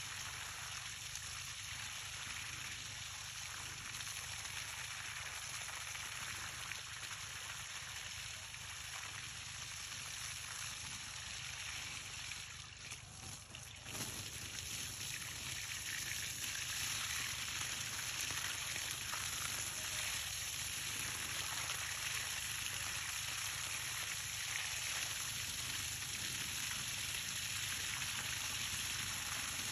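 Water gushing from an open hose end onto bare soil around pepper plants, a steady splashing rush. It drops away briefly about thirteen seconds in and comes back a little louder.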